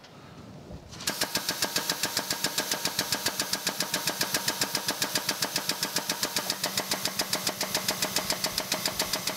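Air-over-hydraulic jack on a shop press, pumping under air power with a rapid, even pulsing of about six strokes a second that starts about a second in. The press is forcing an old shaft out of a flat belt pulley hub.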